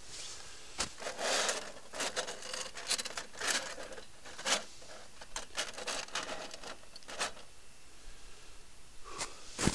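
Irregular scraping and rubbing with scattered light knocks, from things being handled.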